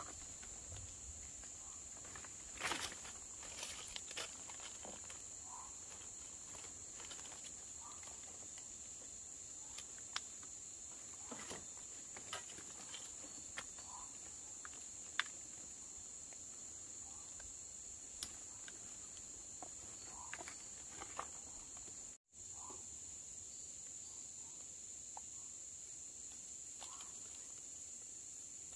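Steady high-pitched drone of insects, with scattered light clicks and knocks over it. The sound drops out for a split second about two-thirds of the way through.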